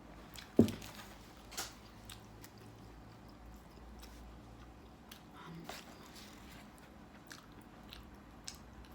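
Close-up eating sounds of pizza being bitten and chewed, with scattered small clicks and smacks. There is one sharp thump a little over half a second in and a softer click about a second later.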